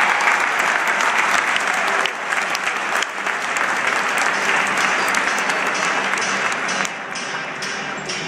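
Crowd applause in a gymnasium: many hands clapping together, thinning out and getting quieter about seven seconds in.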